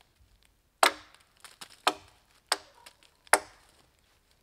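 Four chops of a Condor Pack Golok into a thin dead wooden pole, each a sharp crack with a brief ring after it, the first and last the hardest.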